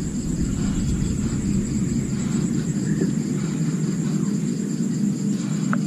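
Insects trilling steadily in a high, pulsing chorus over a steady low rumble, with a few faint ticks near the end.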